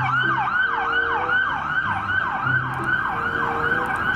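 Electronic police siren wailing in quick falling sweeps, about three a second, each dropping from high to low pitch.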